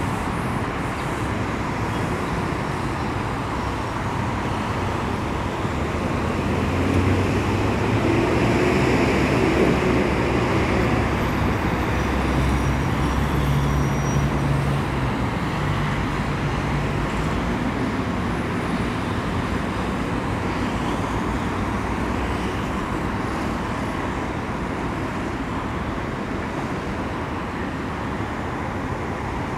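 Steady road traffic from a busy city street: cars and buses running past in a continuous wash. A heavier engine grows louder through the middle and then fades back into the general traffic.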